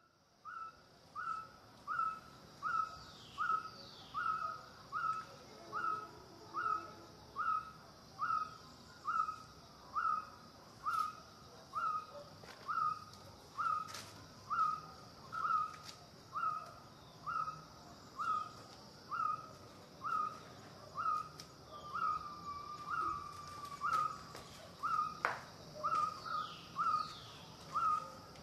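A bird repeating one short call about once a second, evenly and without a break, with a steady high hiss behind it.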